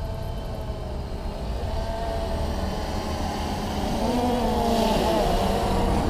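Small quadcopter drone flying close, its motors whining in several tones that bend up and down in pitch as it manoeuvres, growing louder toward the end over a steady low rumble.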